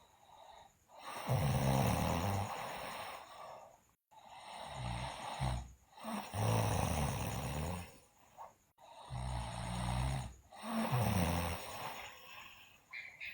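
A sleeping girl snoring loudly: three long snores about four seconds apart, each a low pulsing rasp in two parts, with quiet breaths between them.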